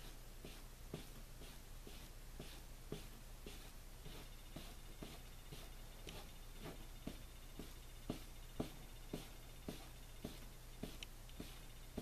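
Crumpled plastic wrap being dabbed against a painting board, a steady run of soft taps, about two a second, as paint is pressed on.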